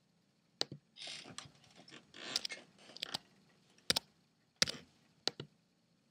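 A scattered series of about eight sharp computer clicks, mouse and key presses, with two brief stretches of rustling about one second and two and a half seconds in.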